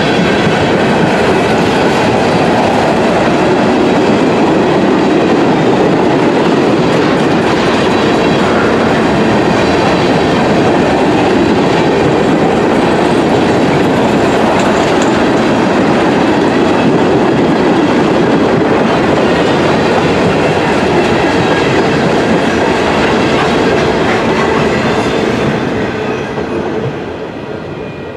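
Freight train cars (covered hoppers, tank cars and boxcars) rolling past: a steady rumble with the clatter of wheels over the rails, fading over the last few seconds as the end of the train goes by.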